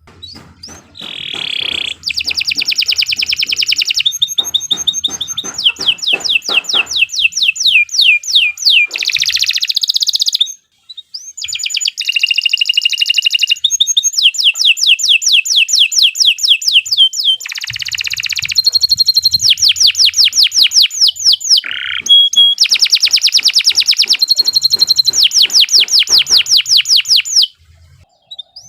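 Domestic canary singing a long, loud song made of rapid trills: each phrase is a fast run of repeated downward-sweeping high notes, many per second. The bird switches to a new phrase every second or few, with a brief break about ten seconds in and another near the end.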